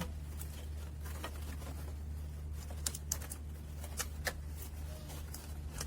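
Scattered light clicks and taps of a hand tool working the positive battery terminal clamp loose, over a steady low hum.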